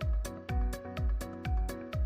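Background music with a steady beat: a low thump about twice a second, quicker ticks above it, and held notes.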